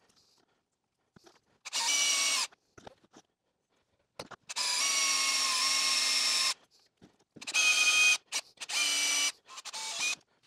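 Power drill running a small drill bit through a right-angle adapter, drilling holes into a metal lathe carriage. It runs in five short bursts with a steady whine, the longest about two seconds near the middle.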